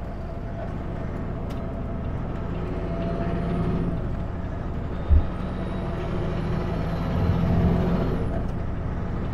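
Kenworth W900L semi truck's diesel engine running on the highway, a steady low hum that swells twice. There is a single low thump about five seconds in.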